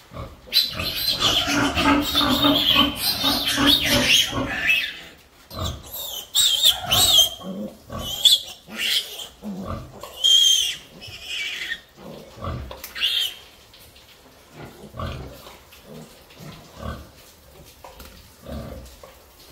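A three-day-old Duroc piglet squealing loudly as it is caught and held. It squeals without a break for about four seconds, then in shorter separate squeals, which die away over the last few seconds.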